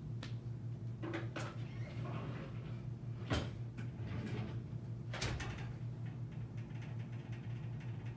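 A steady low hum with a few short knocks or clunks over it, the loudest about three seconds in and another about five seconds in.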